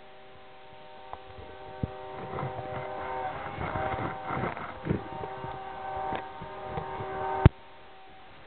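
Union Pacific SD70M locomotive's multi-chime air horn sounding one long chord from a distance, swelling over the first few seconds with a rushing rumble underneath. It cuts off abruptly with a click near the end.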